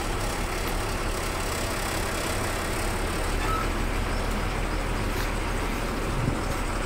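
Steady low rumble of an idling engine with a constant hiss over it.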